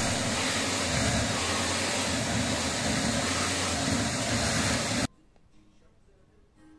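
Vacuum cleaner running steadily, its hose nozzle being run over a dog's coat; the sound cuts off suddenly about five seconds in.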